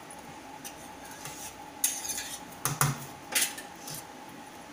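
Metal kitchenware clinking: a steel spatula and pots knocked against each other and on steel plates, a few sharp clinks about two to three and a half seconds in.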